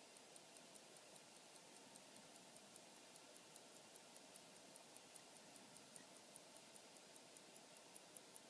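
Illinois 19-jewel pocket watch movement ticking steadily and faintly, about five ticks a second, over a quiet hiss.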